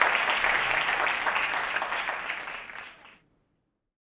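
Audience applauding, a dense patter of many hands clapping that fades out about three seconds in.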